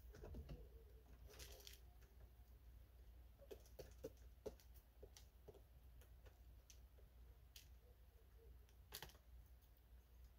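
Near silence, broken by faint scattered taps and rustles of chickens pecking and scratching in straw bedding, with a sharper tick about nine seconds in.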